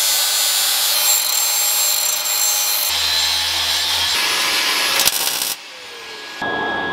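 Cordless angle grinder grinding on steel exhaust tubing, a loud steady harsh hiss. About five and a half seconds in it stops and the disc winds down with a falling whine, then it bites into the metal again near the end.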